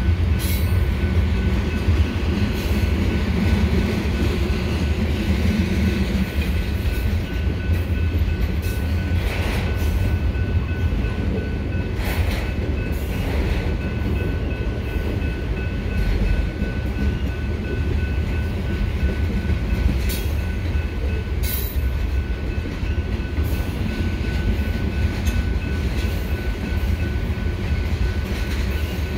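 Freight cars of a slow-moving mixed freight train rolling past: a steady low rumble of steel wheels on rail, with a few sharp clanks here and there and a thin, steady high tone over it.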